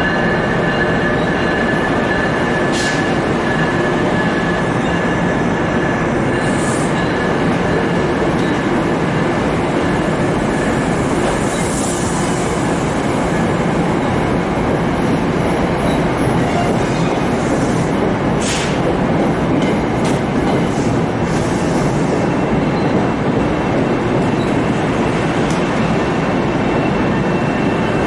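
NJ Transit commuter train's coaches rolling past as the train departs, a steady rumble of wheels on rail with thin wheel squeal. Two sharp clanks come about 3 and 18 seconds in.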